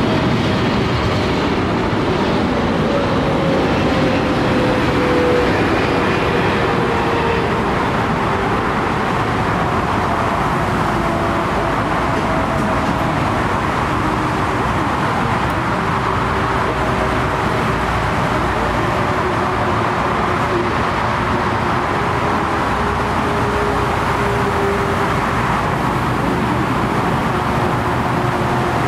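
Jet airliner engines running with a loud, steady roar, as a large twin-jet passes low over the runway. A faint whining tone slides down in pitch over the first several seconds.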